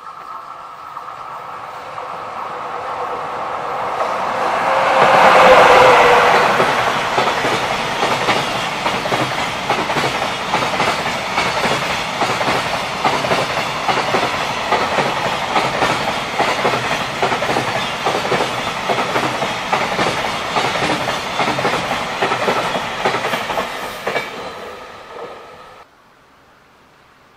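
Electric freight train of container wagons passing close by at speed. The sound builds to its loudest about five or six seconds in as the head of the train goes past, then continues as a long steady clickety-clack of wagon wheels over the rail joints. It cuts off suddenly near the end to a faint hiss.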